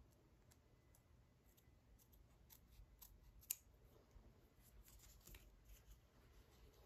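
Faint small clicks and snips from handling, with one sharper click about three and a half seconds in.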